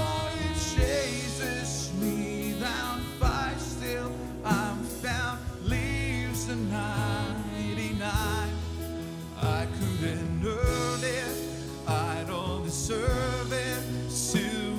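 A live worship band playing a contemporary Christian song: a male lead voice sings the chorus over acoustic guitar, electric guitars and keyboard, with sharp beats every second or so.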